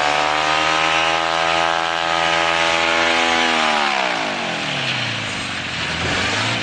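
Small engine on a homemade wheeled frame running at high revs, then throttled back about four seconds in, its pitch falling steeply to a low idle.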